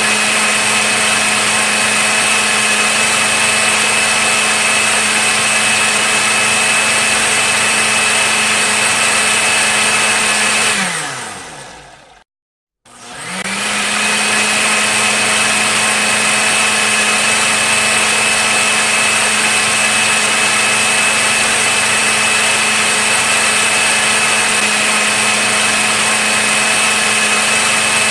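Electric blender motor running at a steady high speed with a high whine. About eleven seconds in it is switched off and winds down with falling pitch to a brief silence. It is then switched back on, spins up and runs steadily again.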